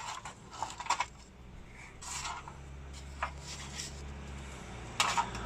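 Light handling noises of fuel pump parts and wiring being turned over in the hands: a few short clicks and knocks spaced about a second apart, the sharpest near the end, over a faint low hum.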